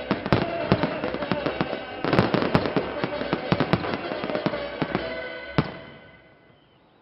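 Fireworks display at its close: a dense volley of shell bursts, launches and crackling, thickest about two seconds in, ending with one last loud bang at about five and a half seconds, after which the din dies away. Music plays underneath.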